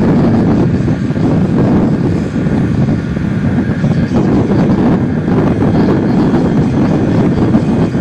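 Wind buffeting the microphone: a loud, steady, low rumble that wavers irregularly throughout.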